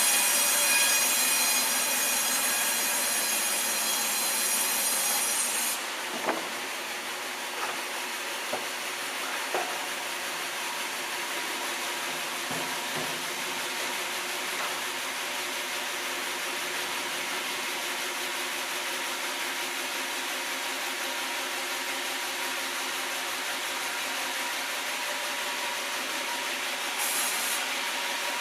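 Sawmill blade running through a log: a loud, high-pitched whine for the first six seconds or so, then steadier, duller machine noise with a few knocks.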